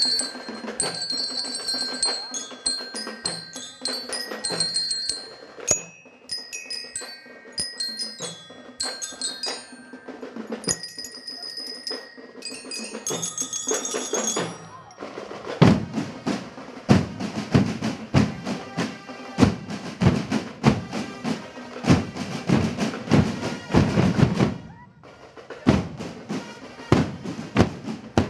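Marching band of bell lyres and drums. For about the first half the bell lyres ring out a melody over the drums; then the drums carry on alone in a steady marching cadence, break off briefly near the end and start again.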